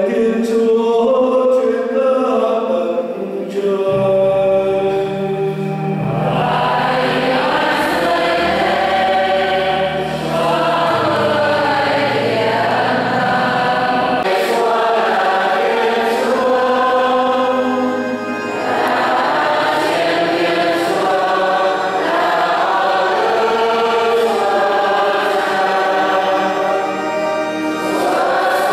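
Church choir singing a hymn with instrumental accompaniment. A melodic instrumental opening comes first, and the voices come in about six seconds in.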